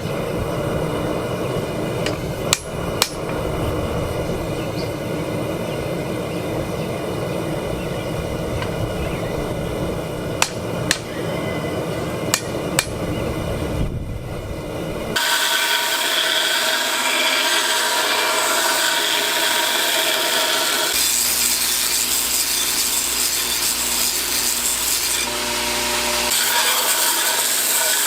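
A steady low roar with a few sharp hammer strikes on steel, coming in pairs, then from about halfway a grinder taking down steel with a loud, hissing, high-pitched grind.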